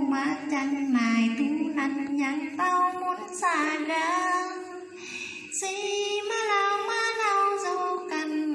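A woman singing a Vietnamese vè (folk narrative song) solo and unaccompanied into a handheld microphone, in long held notes that bend and slide, with a brief breath pause about halfway through.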